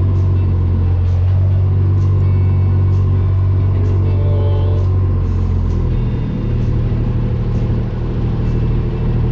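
Kubota side-by-side utility vehicle's engine running steadily as it drives, heard from the driver's seat, with the low drone changing and turning rougher about six seconds in.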